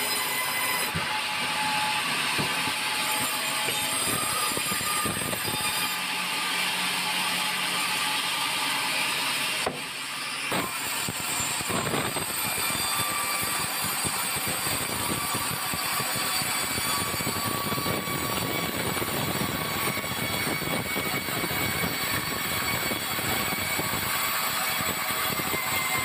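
Band sawmill running steadily as its blade cuts lengthwise through a white meranti log. The sound drops briefly about ten seconds in, then carries on.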